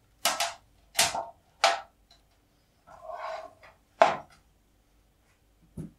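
Hands handling and setting down a small plastic module box, coiled cables and a small aluminium enclosure on a tabletop: four sharp knocks with a brief scraping rustle between the third and fourth.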